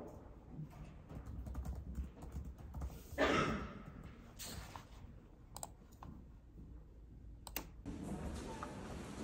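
Typing on a laptop keyboard: keys clicking in quick, irregular runs, with one louder knock about three seconds in. Near the end the typing stops and a steady background hiss takes over.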